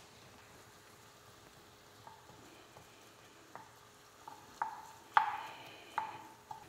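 Wooden spatula stirring sliced onion and garlic in a non-stick frying pan over faint sizzling; from about two seconds in it knocks and scrapes on the pan several times with a short ring, loudest about five seconds in.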